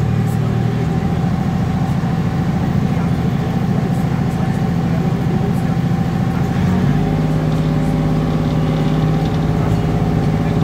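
A water bus's engine running steadily as the boat comes in alongside the landing pontoon; about seven seconds in its note shifts and a deeper rumble sets in as the boat manoeuvres to dock.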